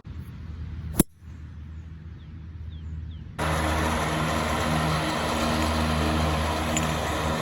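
A single sharp click about a second in, then, starting abruptly a little before halfway, a golf cart running steadily with a low engine hum under a broad rushing noise.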